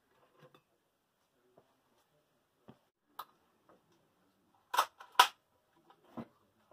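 PCP air rifle being cocked and loaded: scattered light clicks and knocks, then two sharp metallic clacks about half a second apart near the end as the action is worked.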